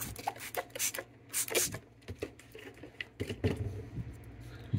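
Hand trigger spray bottle squirting cleaning alcohol onto a circuit board: several short, hissing sprays.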